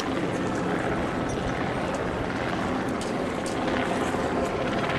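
Steady rushing outdoor background noise, an even hiss over a low rumble, with no clear single event.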